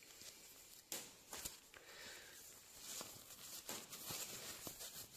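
Faint rustling and scattered clicks and knocks of a person handling gear and pulling on gloves close to the microphone, over a steady hiss. The sharpest knock comes about a second in.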